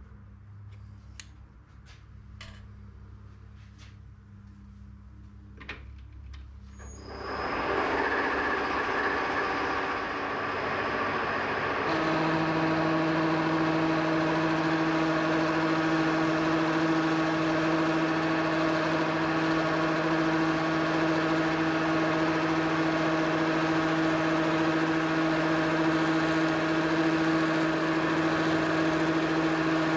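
A few light clicks and knocks, then a metal lathe starts up about seven seconds in and runs steadily. About twelve seconds in the sound steps up and a steady, even hum joins it.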